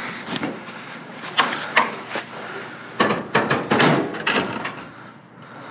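Knocks and clatter of hard junk, mannequin parts among it, being shifted and pulled about in a packed dumpster: a few sharp knocks, then a quick cluster of them about three seconds in.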